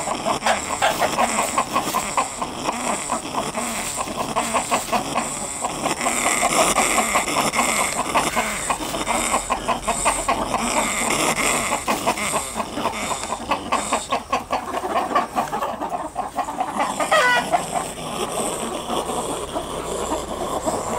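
A flock of chickens clucking continuously in rapid overlapping chatter. About 17 seconds in, one higher call rises and falls in pitch.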